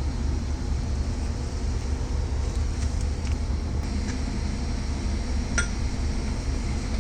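Steady low rumble with a few faint metallic clicks and one sharper clink about five and a half seconds in, as a tool turns the seized crankshaft of an Isuzu truck engine by hand.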